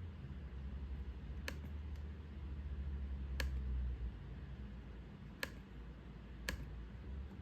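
Four sharp single clicks of a laptop trackpad, spaced a second or two apart, over a low steady rumble.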